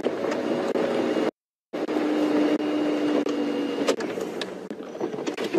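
Safari game-drive vehicle's engine running with a steady hum. The sound cuts out completely for a moment about a second in.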